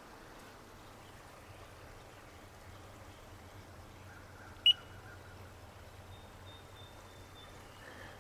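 Veteran Sherman electric unicycle's built-in beeper sounding one short, loud, high-pitched beep about halfway through, over faint steady background noise.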